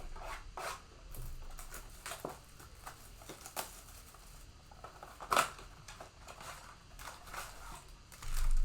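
Panini Mosaic football card blaster box and foil packs being handled and opened: scattered crinkling, small tearing and clicking, with one sharper snap about five seconds in.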